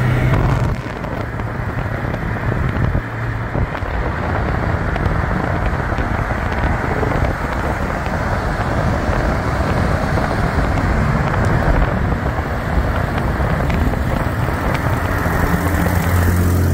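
Steady road and wind noise from cars moving alongside each other. Through it comes the low drone of an Infiniti G37's 3.7-litre V6 running with no exhaust system, after a flame tune blew the exhaust off. The drone is strongest at the very start and again in the last few seconds.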